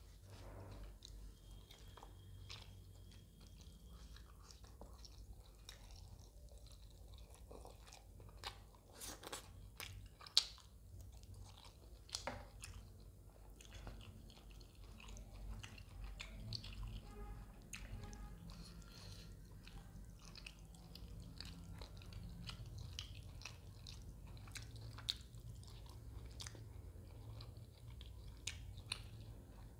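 Close-up eating sounds of fish curry and chapati: chewing, wet mouth clicks and occasional crunches, with a sharp click about ten seconds in, over a low steady hum.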